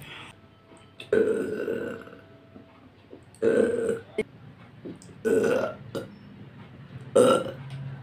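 A woman burping four times, about two seconds apart, the first burp the longest.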